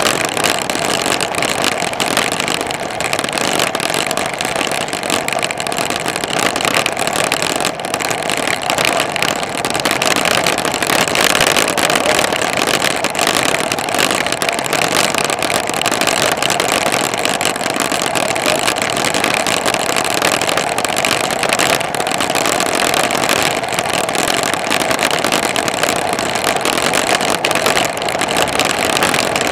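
Steady rushing wind over the microphone, mixed with tyre noise on asphalt, while riding along a paved road.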